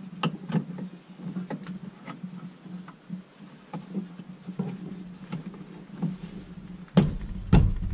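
Small clicks, taps and rustling as things are handled in a car's back seat, over a steady low hum, ending with two heavy thumps about half a second apart near the end.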